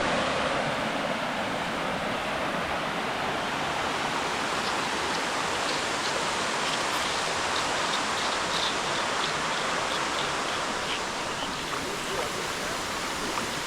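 Steady rushing of a waterfall, an even wash of falling water with no break.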